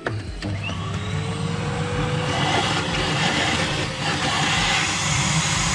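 Vacuum cleaner switched on and running, its motor rising in pitch over the first couple of seconds as it spins up, then a steady suction rush as the hose sucks drilling dust out of a drilled hole in concrete.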